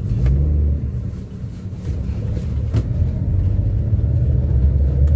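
Maruti Suzuki WagonR on the move, heard from inside the cabin: a steady low rumble of engine and road noise that grows a little louder after about three seconds, with a few faint clicks.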